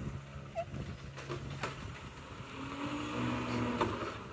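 Garbage truck engine running steadily at low speed, a low hum with a higher tone joining for about a second near the end.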